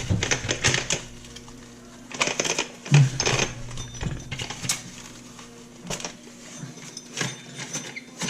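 Irregular clicks and clunks of metal parts being handled as a cup grinding wheel is taken off an angle grinder's spindle.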